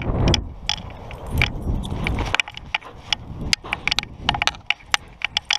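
Irregular light metallic jingling and clicking, as of tags or clips on a dog's harness and tracking line. Wind rumbles on the microphone for the first two and a half seconds or so, then drops away.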